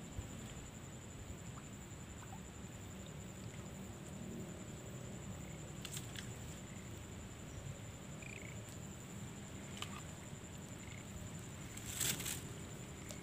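Quiet outdoor ambience: a steady low rumble with a thin, steady high-pitched whine over it. A few faint clicks come through, about halfway, again later, and a louder one near the end.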